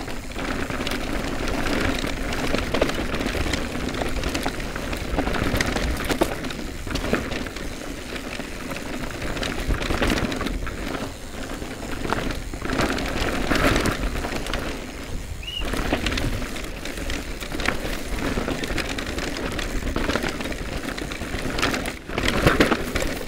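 Cube Stereo Hybrid e-mountain bike descending a rocky, rooty dirt trail at speed: a continuous crunch of tyres over dirt and stones, with the bike clattering over bumps.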